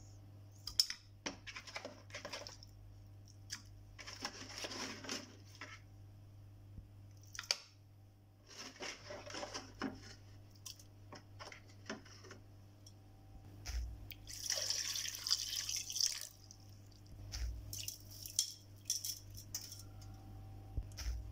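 Pieces of wet raw mutton put by hand into an aluminium pressure cooker, landing in a few short bursts with light clicks against the metal.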